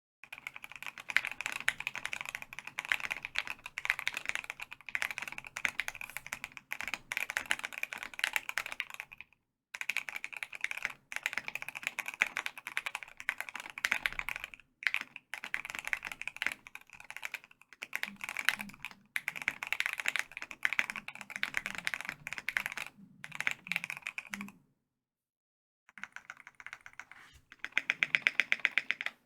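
Typing on a custom KBD75v3.1 mechanical keyboard with a foamed polycarbonate plate, stock EG Aqua King linear switches and doubleshot ABS keycaps: a continuous stream of keystrokes broken by short pauses. There is a longer pause about three-quarters of the way through, and near the end comes a louder, fast run of evenly spaced strokes.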